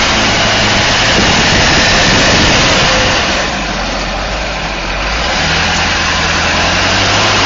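Duramax 6.6 L V8 turbodiesel idling steadily, under a loud even rushing noise that dips briefly in the middle.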